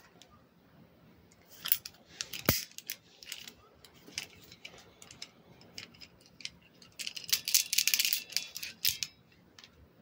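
1949 Hiatt 104 Darby handcuffs being handled, their cuffs and chain links clinking and rattling. There is a sharp click about two and a half seconds in, and a dense rattle of chain near the end.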